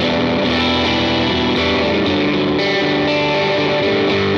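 Electric guitar played through a GizmoAudio Sawmill Jr. MOSFET overdrive pedal: distorted chords strummed and left to ring, with new strokes about every half second to a second.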